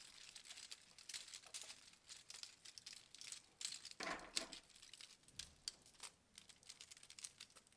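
3D-printed plastic Hoberman sphere links handled and snapped together by hand: a faint, irregular run of small clicks and light rattling.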